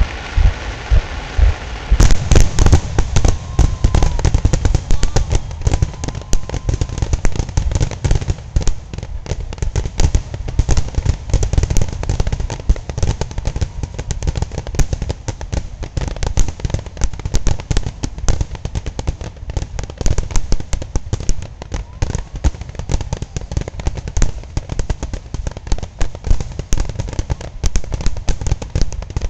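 Fireworks display: a few scattered bangs, then from about two seconds in a dense, continuous barrage of rapid bangs and crackling, many per second.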